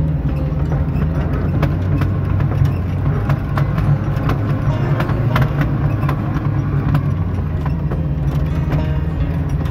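Small Suzuki 4x4's engine running steadily, heard from inside the cabin while driving a rutted dirt track, with frequent irregular knocks and rattles from the body and suspension over the bumps.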